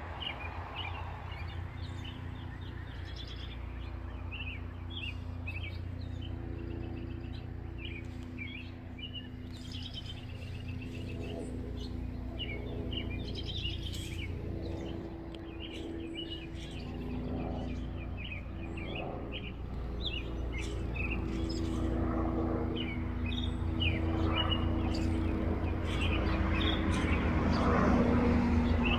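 Small birds chirping and singing over a low, steady helicopter drone that grows louder through the second half as the helicopter approaches overhead.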